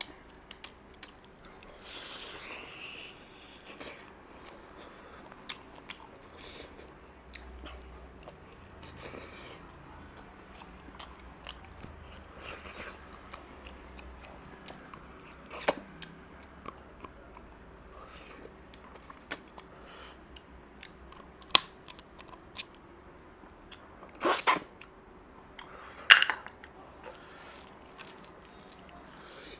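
Close-up eating sounds: steady wet chewing and smacking of a mouthful of mutton curry and rice, with a few louder sharp crunches in the second half.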